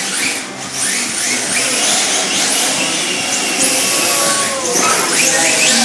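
Radio-controlled drift cars' electric motors whining, the pitch sweeping up and down again and again as the cars are throttled through the turns.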